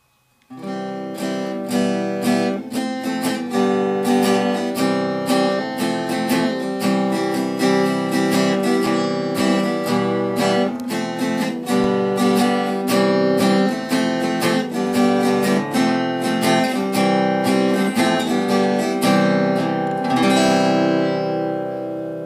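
Acoustic guitar music, plucked and strummed. It starts about half a second in, and near the end a final chord is left ringing and fades away.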